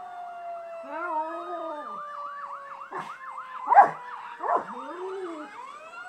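A small dog howling along with fire truck sirens: one siren wails slowly downward in pitch while a second yelps quickly over it, and the dog's howls rise and fall twice. Short, sharp, loud cries from the dog break in about two-thirds of the way through, and near the end the wailing siren starts rising again.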